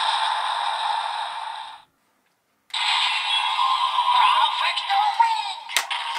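Kamen Rider Revice Two-Sidriver transformation belt toy playing electronic music and a synthetic voice through its small speaker. Its finisher sound cuts off about two seconds in, and after a short silence a new sound loop starts. There is a sharp click shortly before the end.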